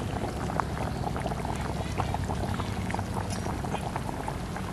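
A curry boiling hard in a black iron karai over a wood fire: steady bubbling with many small irregular pops.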